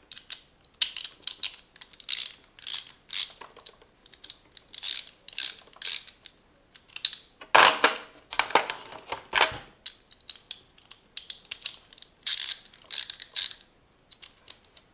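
Ratchet handle from a 46-piece socket set clicking as it is worked back and forth, in repeated short bursts of rapid clicks with brief pauses between.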